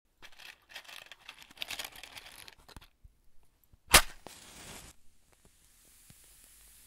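Scratchy rustling for a couple of seconds, then a match struck on a box: a sharp strike about four seconds in and the hiss of the match head flaring for about a second.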